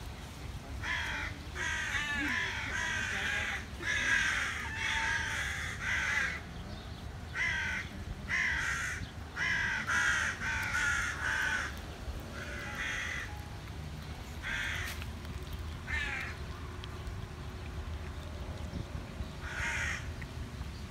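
Crows cawing: a rapid run of short, harsh caws for the first half, thinning to a few scattered caws later on.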